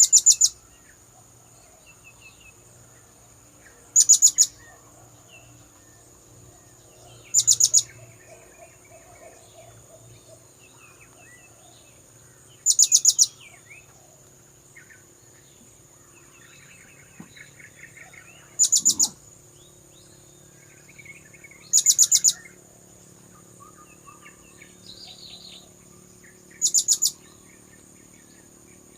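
Blue-crowned hanging parrot (serindit) calling: short, loud bursts of three or four rapid, very high, sharp notes, about seven times at irregular gaps of a few seconds. A steady thin high tone and faint chirps from other birds run beneath.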